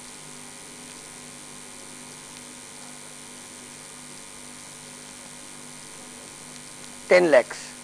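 Steady electrical mains hum with a faint hiss in the lapel-microphone recording; a man says a short word about seven seconds in.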